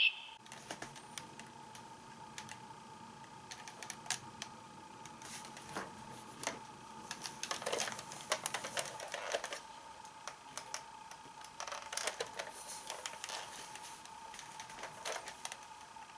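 Light plastic clicks and rattles of a Kamen Rider Ryuki toy belt and Dragvisor being handled, scattered and irregular, over a faint steady hum.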